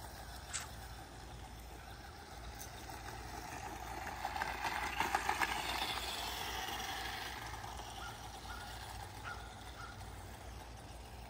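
Toy RC car (Adventure Force Baja Brute) driving: its small electric motor whines and its plastic wheels rattle on the concrete as it comes up close, loudest about five seconds in, then fading as it moves away.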